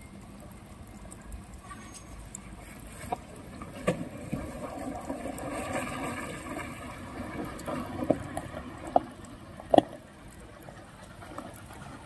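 Hino box truck grinding slowly up a steep dirt slope, its engine under load and its tyres crunching over loose gravel. It gets louder as it draws close. A few sharp knocks sound over it, the loudest about ten seconds in.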